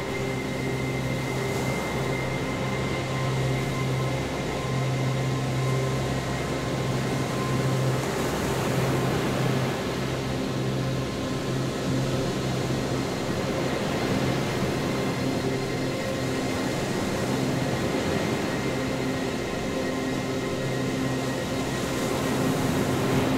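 Quadcopter drone's propellers humming steadily: a low multi-toned hum over a hiss, wavering a little in strength.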